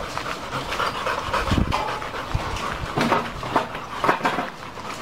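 Dogs panting, a run of quick noisy breaths.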